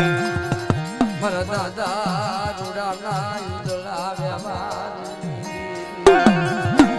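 Indian folk-style music: plucked strings over a hand drum whose bass strokes bend in pitch, with a wavering, vibrato-laden melody line through the middle. About six seconds in the music comes back louder with sharper drum and string accents.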